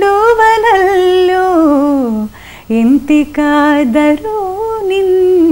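A woman singing Indian classical vocal phrases unaccompanied, holding long notes that bend and glide in pitch. The first phrase falls away about two seconds in, and after a short breath she begins another.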